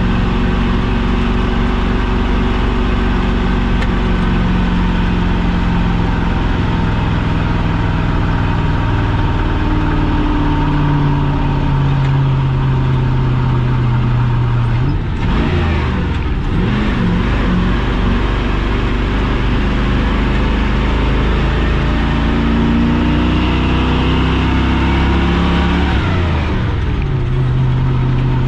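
A 6.0 Vortec V8 in a square-body Chevy K30 running under load while pulling a loaded trailer. The engine note breaks and shifts about halfway through, then falls near the end before settling at a steady pitch.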